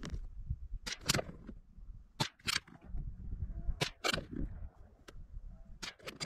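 A CZ 452 bolt-action .22 Magnum rifle firing Norma 40-grain rounds: four shots about a second and a half apart, each heard as a sharp double crack.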